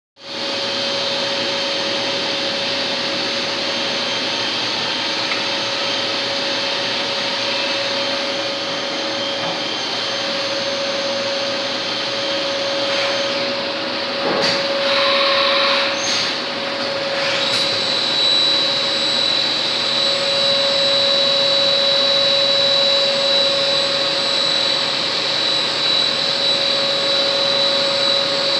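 Compact CNC automatic lathe running: a steady mechanical hum with a constant whine throughout. Briefly uneven about 13 to 17 seconds in, after which a higher-pitched whine starts and holds.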